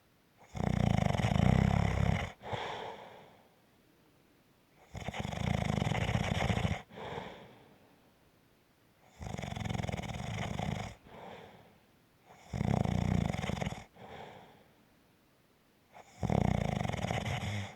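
Light rumbling snoring with an even rhythm: five loud snores about four seconds apart, each a rumble of a second and a half to two seconds followed by a shorter, softer breath.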